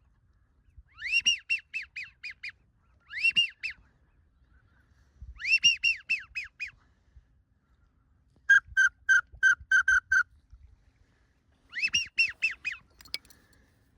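A flock of greater white-fronted geese (specklebellies) calling in five bursts of quick, high-pitched, yelping notes, about five to seven notes per burst with short gaps between the bursts.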